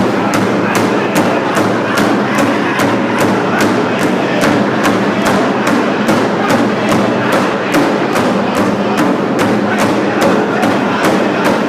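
Powwow drum group singing over a large hand drum struck in a steady beat, about three strikes a second.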